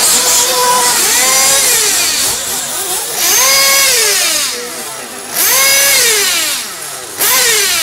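RC off-road buggies racing, their high-pitched motors repeatedly revving up and dropping off as they run the track. Several cars overlap at different pitches, with brief dips about five and seven seconds in.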